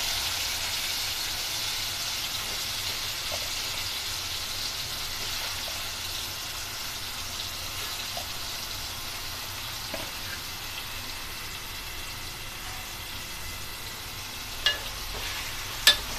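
Prawns frying in hot oil with red chilli powder: a steady sizzle that slowly dies down, with a few sharp clicks of a metal spoon against the metal pot near the end as they are stirred.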